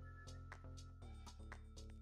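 Quiet background music with a steady beat, about two strokes a second over held chords.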